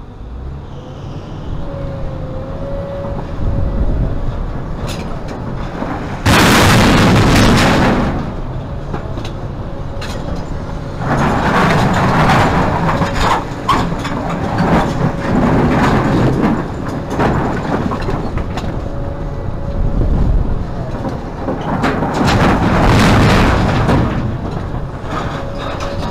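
Hidromek 390 excavator's Isuzu six-cylinder diesel running steadily under a faint steady whine. Loud noisy bursts of soil and rock being scooped and dumped into a truck come several times, the first about six seconds in.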